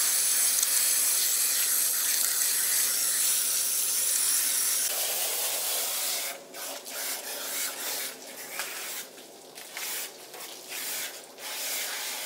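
Handheld hose spray nozzle spraying water onto a wet dog's coat, a steady hiss. After about six seconds the spray breaks up, dropping out briefly several times before running steadily again near the end.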